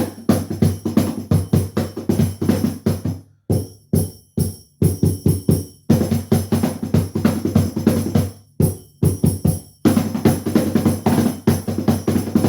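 Cajon played by hand in a fast groove of deep bass strokes and sharper slaps, with a bright metallic jingle ringing over the hits. The playing comes in quick runs broken by several short pauses.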